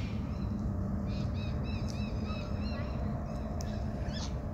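Birds chirping: a quick run of short repeated chirps starting about a second in, then a single rising chirp near the end, over a steady low rumble.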